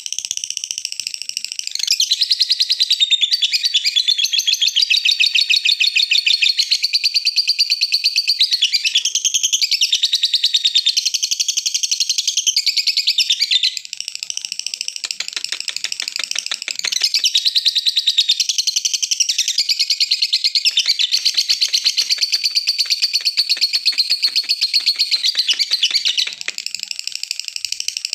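Lovebird ngekek: a long, very rapid, high chattering trill held unbroken for about ten seconds at a stretch. About halfway through it breaks into softer, choppier chirping, then the long trill picks up again. This is the kind of call used as a lure (pancingan) to set other lovebirds off ngekek.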